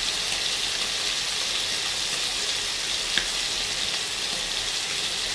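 Cubed beef searing in foaming butter and canola oil in a pan, a steady sizzle. A single light click about three seconds in.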